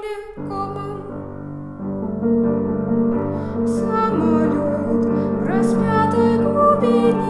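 Piano playing a slow accompaniment of sustained chords, with a melody line held above it. The sound fills out with low chords about half a second in.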